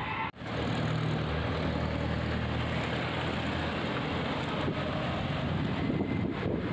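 Road traffic: a car's engine hum as it drives past, strongest for the first few seconds and then fading, over steady road noise.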